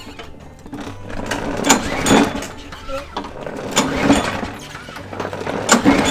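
Lawnmower recoil starter pulled three times, about two seconds apart. Each pull gives a short surge of cord and engine noise, and the engine does not catch. It is not getting fuel, which the owner is pretty sure comes from clogged carburetor jets.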